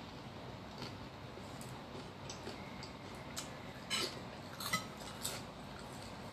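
A metal spoon clinking against a ceramic bowl a few times, the loudest clinks about four seconds in and shortly after, some ringing briefly.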